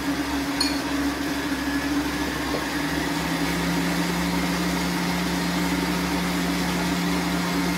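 Electric stand mixer running, beating cake batter in its steel bowl: a steady motor hum. About three seconds in, a second, lower tone joins it and holds.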